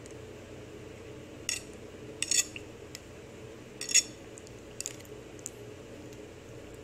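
A metal spoon clinking against a bowl several times as it scoops oatmeal. The loudest clink comes about four seconds in, over a faint steady hum.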